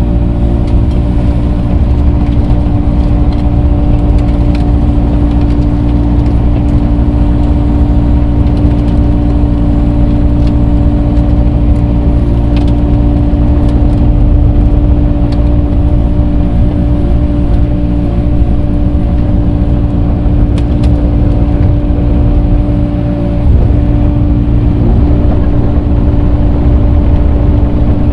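Earthmoving machine's engine running steadily under working load while grading dirt, a constant loud drone with a steady hum, and a few faint clicks and clanks.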